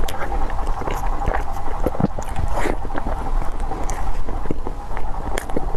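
Close-miked chewing of a soft, sticky pink dough sweet: irregular wet mouth clicks and smacks over a steady low rumble.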